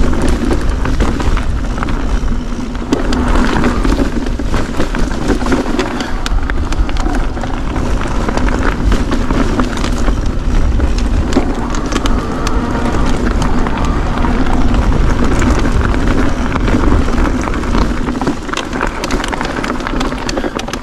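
Mountain bike rolling over rocky singletrack: tyres crunching on loose stone, with frequent small knocks and rattles from the bike, and wind rumbling on the handlebar camera's microphone.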